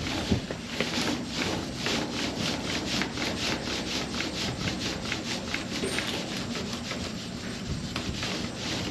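Rapid back-and-forth strokes of a hand tool rubbing over a car body panel, about three to four strokes a second, steady and even.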